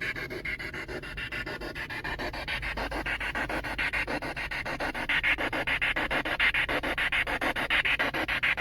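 Rushing water of a river rapids, chopped by a fast, even pulsing of about eight beats a second, growing louder about halfway through.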